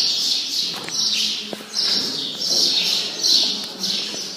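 Pet birds chirping in quick, busy phrases, one after another.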